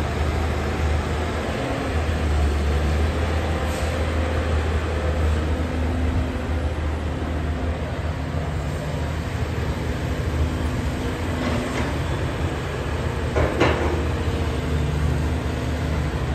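Caterpillar hydraulic excavator's diesel engine and a heavy dump truck running with a steady low rumble, with a few knocks from the bucket working the soil, the loudest about thirteen and a half seconds in.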